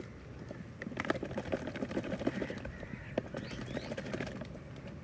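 Bird calls, with scattered clicks and knocks.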